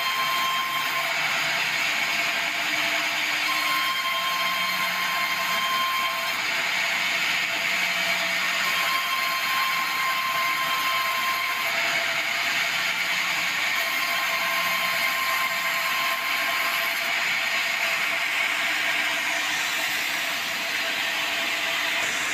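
Swing-blade sawmill running steadily, sawing boards from a debarked meranti log, with a whine that comes and goes about every five seconds.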